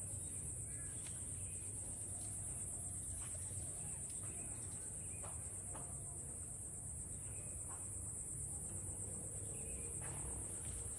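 Steady high-pitched drone of insects, with faint short bird chirps now and then.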